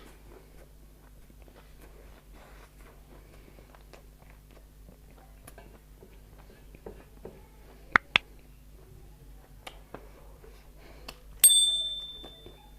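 Soft chewing and mouth clicks while eating, with two sharp clicks about eight seconds in. Near the end something hard strikes and leaves a bright metallic ping that fades over about a second.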